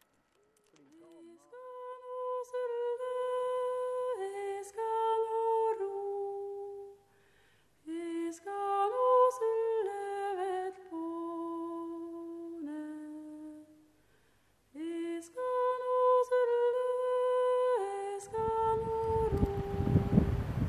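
A single voice, without words, humming a slow melody in long held notes, in three phrases with short breaks between them. Wind buffeting the microphone comes in near the end.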